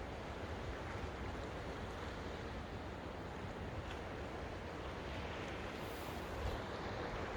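Steady wind rushing, with gusts buffeting the microphone in a low rumble.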